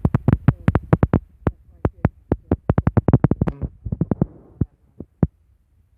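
Rapid, irregular run of sharp clicks and taps, thinning out and stopping about five seconds in.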